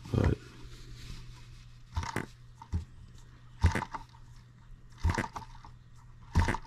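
A 1.6 cc M18 single-cylinder model engine turned over by hand at its flywheel: about six short sounds, each a fraction of a second, as the piston comes up against compression. The compression is good.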